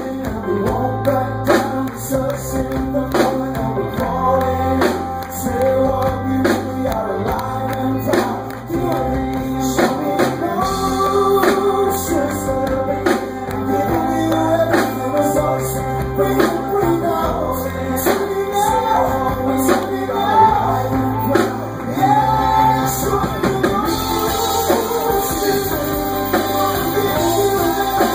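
Live rock band playing: electric guitars, electric bass and a drum kit keeping a steady beat, with a male lead singer's voice over them.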